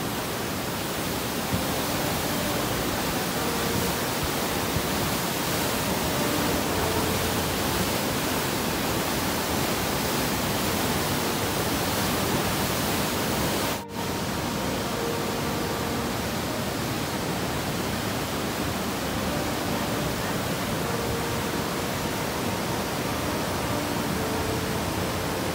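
Steady rush of a muddy river in flash flood, a dense, even noise of torrential water that breaks off for a moment about halfway through and carries on.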